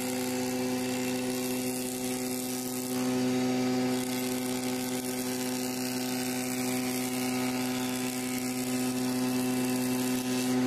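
Electric wood surface planer (randa machine) running with its freshly tightened carbon steel blades, a steady motor hum with a whirring noise over it that grows about three seconds in.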